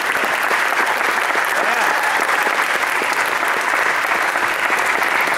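Audience applauding steadily, a dense patter of many hands clapping, with voices mixed in.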